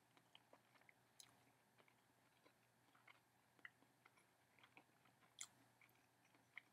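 Faint chewing of a mouthful of pan pizza crust: scattered soft mouth clicks at irregular moments, the loudest about five and a half seconds in.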